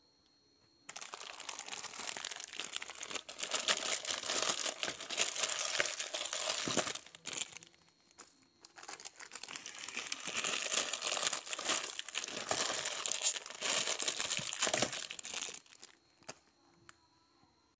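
Plastic instant-noodle wrappers crinkling as the packets are opened and the noodle blocks taken out, in two spells of several seconds with a short pause between.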